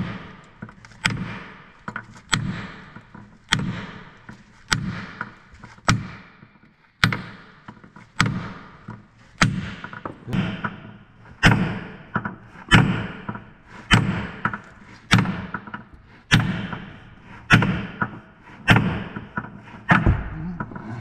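Sledgehammer blows landing metal on metal, about one every 1.2 seconds, each with a short ring. They are driving a stuck pin out through a second hammer held against it as a drift.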